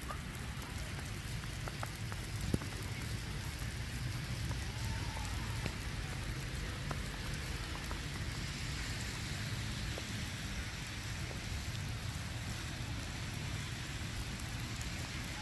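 Steady outdoor ambience during a snowfall: an even hiss with a low rumble underneath and a few faint ticks.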